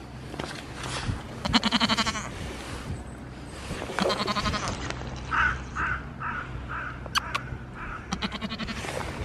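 Goats bleating: two loud, quavering bleats in the first half and a lower one near the end.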